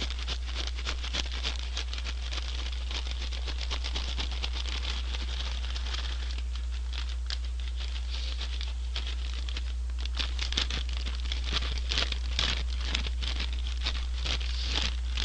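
A folded paper bag of McDonald's french fries shaken hard with honey-butter seasoning powder inside, a fast continuous paper rustle and rattle of fries, with sharper strokes in the last few seconds. A steady low hum sits underneath.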